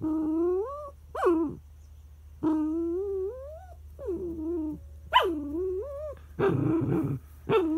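A dog whining and crying in a string of drawn-out whines that bend up and down in pitch, with a short sharp yelp about a second in and a rougher, growly cry near the end. It is a frustrated tantrum over a treat that another dog is lying on.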